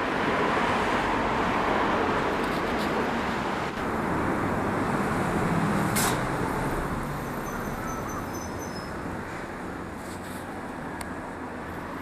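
Steady outdoor background hum of distant road traffic, easing a little in the second half, with one short click about six seconds in.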